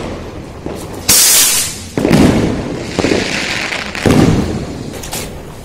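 A rocket firework launches with a sharp hiss about a second in. Three firecracker bangs follow, about a second apart.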